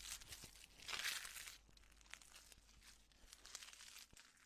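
Plant material being crumpled and rustled, with a louder crinkling rustle about a second in, then quieter rustling broken by small sharp crackles.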